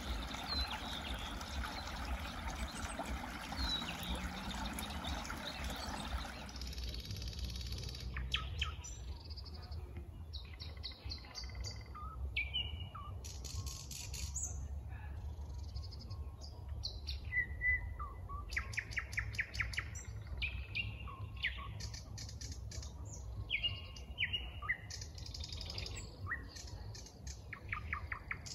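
A small stream babbling for the first six seconds or so, then a nightingale singing: varied phrases of rapid clicks, trills and clear whistles with short pauses between them, over a steady low rumble.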